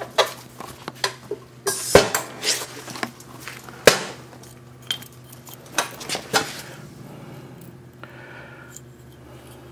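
Metal tools and parts clinking and knocking as they are handled during brake work: a series of sharp separate clinks, the loudest about two and four seconds in, thinning out over the last few seconds over a faint steady hum.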